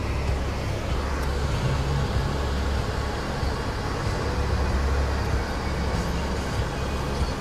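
Steady low rumble of idling car engines and road traffic, heard from inside a car stopped in traffic.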